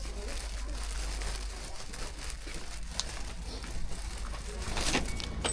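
Steady rain falling, with a few sharp clicks about three and five seconds in.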